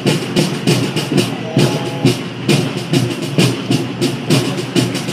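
Drums beating a steady, quick marching rhythm, the accompaniment to a flag-waving display.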